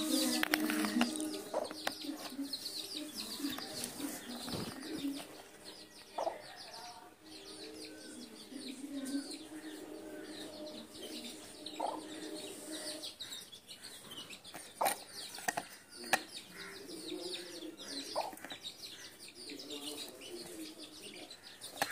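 A hen clucking low and steadily while her chicks keep up a stream of short, high cheeps as they feed. A few sharp taps stand out near the middle.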